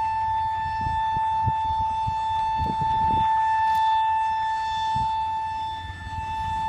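WDG3A diesel locomotive's air horn sounding one long steady note, breaking off briefly near the end and sounding again, over the low rumble of the moving goods train.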